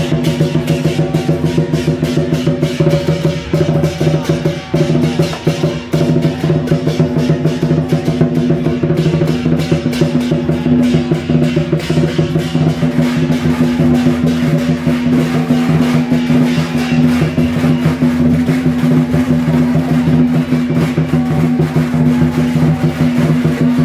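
Temple procession music: fast, continuous drumming with crashing strikes over a steady sustained tone, the percussion that accompanies a lion dance.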